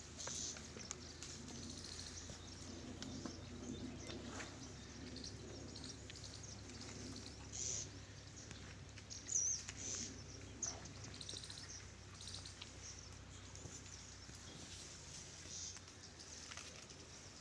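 Small birds chirping now and then, short high calls scattered through, over a faint steady low hum.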